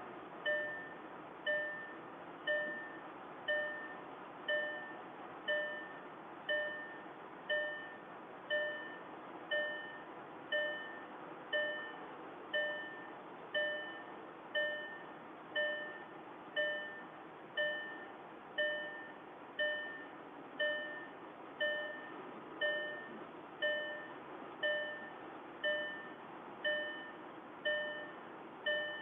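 A car's dashboard warning chime, one bell-like ding repeating about once a second, sounding while the engine is left running.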